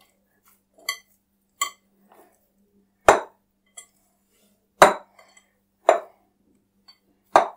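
Hands kneading stiff spinach dough in a glass mixing bowl: a series of irregular knocks as the dough is pushed against the bowl, a few of them short ringing clinks.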